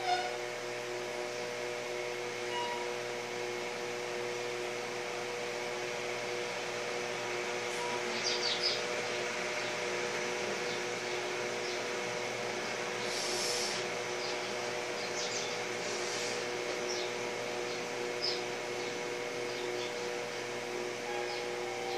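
Steady machine hum with several held tones and a hiss. A few short, faint high chirps are scattered through the second half.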